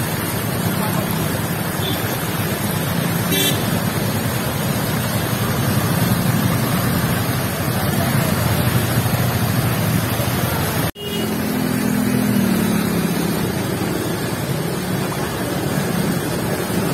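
Floodwater rushing and churning across a road: a loud, steady rush of water, with motor vehicle traffic, a horn, and an engine note that drops in pitch about eleven seconds in.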